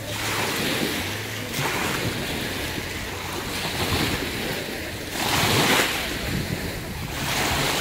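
Lake waves washing onto the shore, surging every couple of seconds, with wind rumbling on the microphone.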